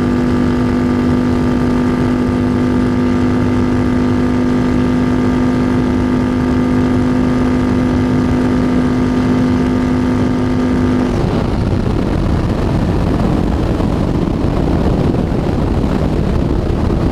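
Yamaha Bolt's air-cooled V-twin with a Vance & Hines exhaust held wide open at top speed, a steady high drone under heavy wind rush. About eleven seconds in the throttle is shut and the engine note drops away, leaving mostly wind noise as the bike slows.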